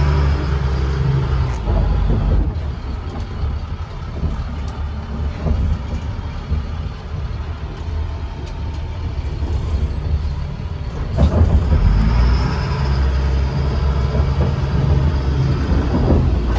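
Heavy diesel truck engine running, heard from inside a military truck's cab, with a steady low drone that grows louder about eleven seconds in.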